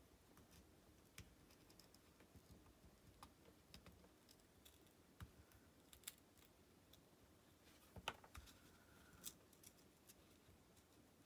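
Faint, scattered small clicks and scrapes as the plastic and metal parts of a small hard-disk MP3 player are handled and pried apart, with one louder click about eight seconds in.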